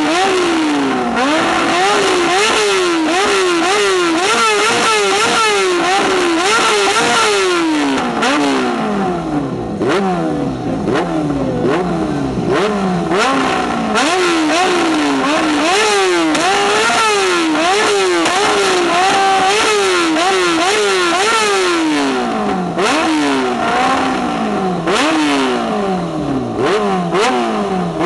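Yamaha R6's 600 cc inline-four engine revved hard over and over with the bike standing still, each rev rising quickly and falling back, sometimes dropping nearly to idle before the next. Sharp pops and cracks from the exhaust come between revs, the backfiring that throws flames from the silencer.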